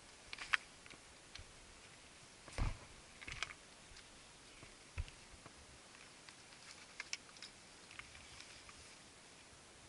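Boots stepping and scuffing on broken rock with irregular light clicks and knocks of gear, a couple of heavier footfalls about two and a half and five seconds in, over a faint steady hiss.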